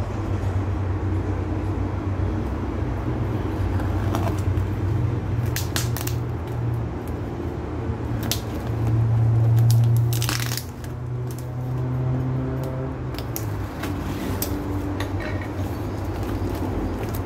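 Opinel folding knife cutting through packing tape and cardboard on a parcel: a scatter of short scrapes and slices, with one longer, louder rip about midway. A steady low hum runs underneath.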